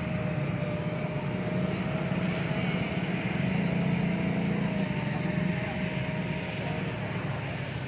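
Radio-controlled model boat motor running at speed on the water: a steady high whine that wavers slightly in pitch and fades near the end, over a dense low rumble.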